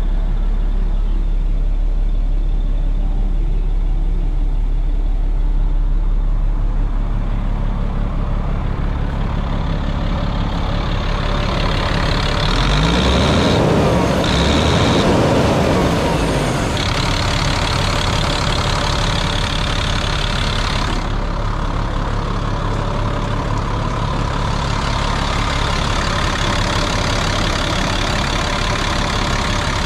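Diesel engine of a 1997 GMC C7500 truck idling steadily, a Caterpillar inline six. It grows louder and brighter for a few seconds about halfway through.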